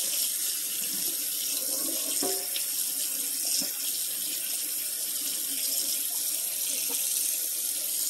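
Kitchen tap running in a steady stream onto canned mixed vegetables in a plastic colander, rinsing them off.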